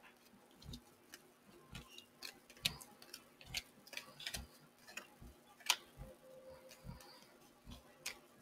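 Oracle cards being drawn from the deck and laid down on a tabletop: a string of faint, irregular taps and clicks.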